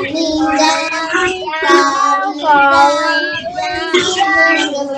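Young children singing a song together, with a woman's voice joining in, heard through a video call.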